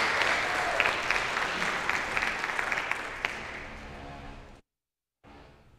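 An audience applauding. The clapping is dense at first, then thins and fades, and it cuts off suddenly about four and a half seconds in.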